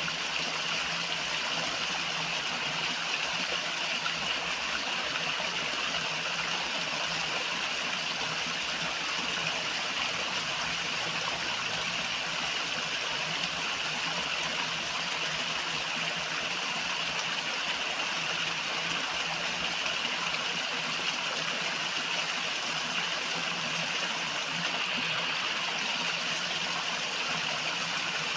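River water flowing over rocks: a steady rushing, splashing stream sound with no change in level.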